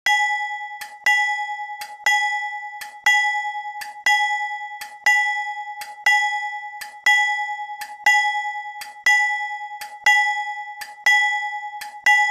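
Synthesized recreation of a General Electric steel locomotive bell ringing steadily, about one stroke a second, each stroke a clear ringing tone that fades before the next. It is dry, with no reverb.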